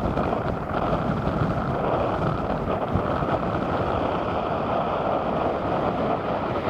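Boeing 777F freighter's GE90 engines in reverse thrust on the landing roll: a steady, loud rushing noise, with wind buffeting the microphone.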